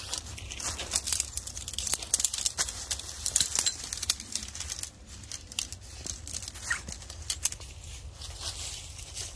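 Dry leaf litter crackling and rustling underfoot, with tent fabric crinkling and the sections of shock-corded tent poles clicking together as they are unfolded. Many sharp, irregular clicks and crackles.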